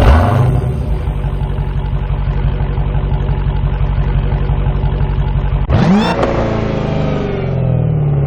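A car engine revving hard and steadily. About six seconds in it drops briefly and climbs again sharply, then its pitch slowly falls.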